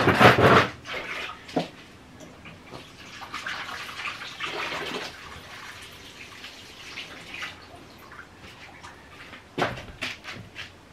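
Water splashing and pouring as peeled taro is rinsed in a bowl of water, loudest in the first second, with softer sloshing a few seconds later. A sharp knock near the end.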